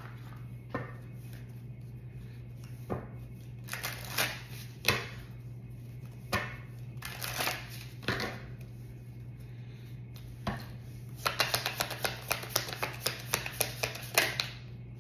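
A deck of cards being handled and shuffled by hand. Scattered slaps and flicks come first, then a quick run of rapid card clicks lasting about three seconds near the end, over a low steady hum.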